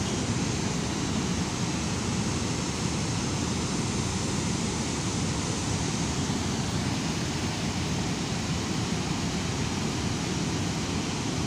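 Steady rushing of river water, the continuous roar of flow through a dam's sluice gates, even and unbroken throughout.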